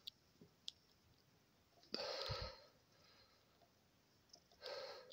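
Quiet background with two breaths, each about half a second long, close to the microphone: one about two seconds in and one near the end. A few faint clicks come before them.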